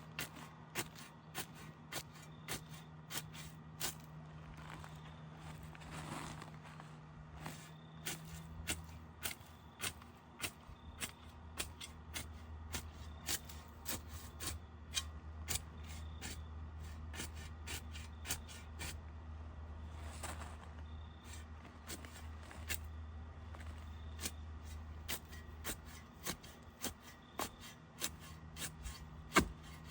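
Carrot ferns being cut up by hand in a steady series of sharp snips, about two a second, over a faint low hum.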